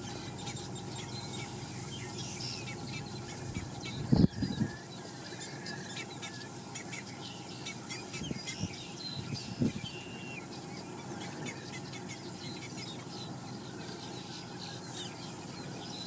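Wild birds calling, many short high chirps and whistles throughout, over a steady low background noise. A loud, short low thump comes about four seconds in, with softer low sounds around eight and ten seconds.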